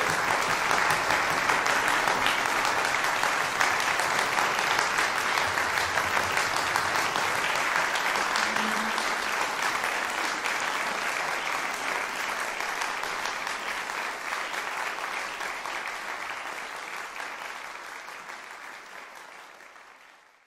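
Concert audience applauding steadily, dense clapping that fades out over the last few seconds.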